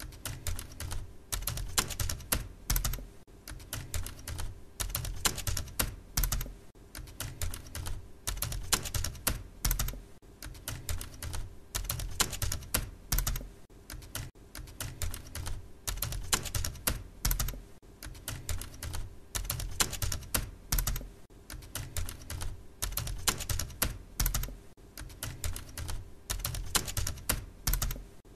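Typing on a keyboard: a continuous run of quick, irregular keystrokes, several a second.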